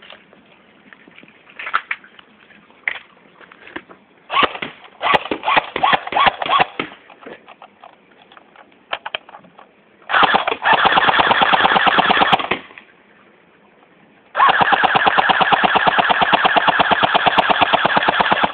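Airsoft MP40 replica firing BBs: a few scattered shots and short bursts, then two long full-auto bursts of rapid, even shots. The second burst lasts about four seconds and stops abruptly.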